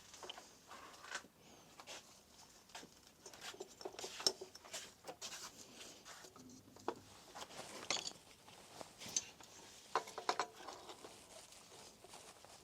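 Faint, scattered clicks and light metallic taps of hand tools and engine parts being handled, a pulley being fitted, with a small cluster of knocks about ten seconds in.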